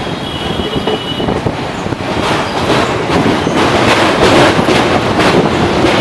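Wheels of a moving passenger train running over the rails, heard from the coach's open door, with a dense rapid clatter. About two seconds in it grows louder as the train rolls onto a steel girder bridge.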